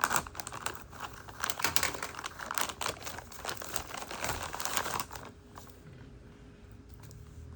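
Packaging crinkling and rustling as it is handled, busiest for the first five seconds or so, then much quieter.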